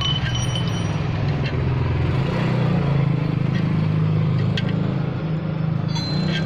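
Steady low hum of a running vehicle engine, with a few faint clicks.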